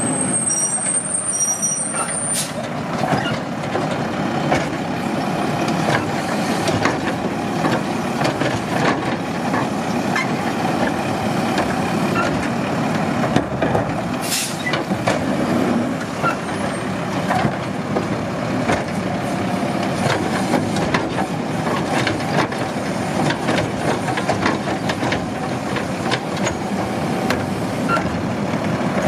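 Mack automated side-loader garbage truck's engine running steadily while its hydraulic arm grabs and tips wheeled trash carts, with scattered knocks and a short hiss about fourteen seconds in.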